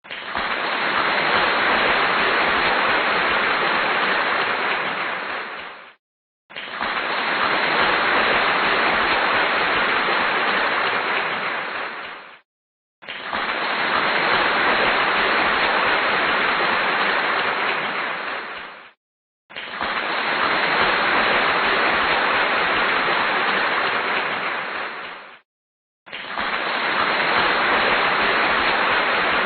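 Crowd applause in five bursts of about six seconds each. Each swells in and fades out, with a brief silence between bursts, and the fifth begins near the end.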